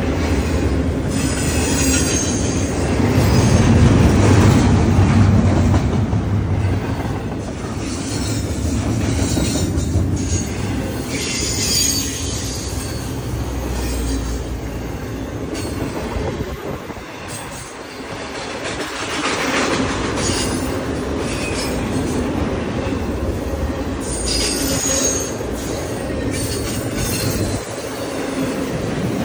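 BNSF intermodal freight train's cars rolling past close by: steel wheels rumbling and clacking on the rails, with high wheel squeals coming and going several times and a short lull just past the middle.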